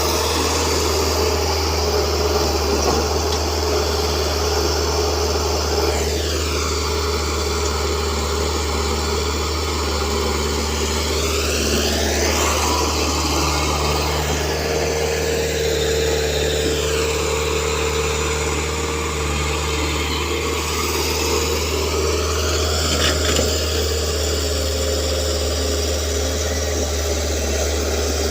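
Excavator's diesel engine running steadily under working load, with a deep steady hum. The tone sweeps down and back up twice as the machine works the aggregate and sand mix.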